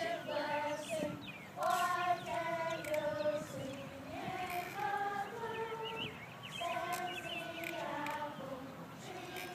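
A group of children singing a tune together in long held notes that step up and down in pitch, accompanying a maypole dance.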